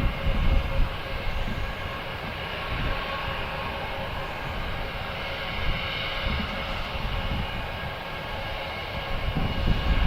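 Airbus A320's jet engines running with a steady whine of several held tones as it lines up for takeoff. Gusts of wind buffet the microphone with an uneven low rumble.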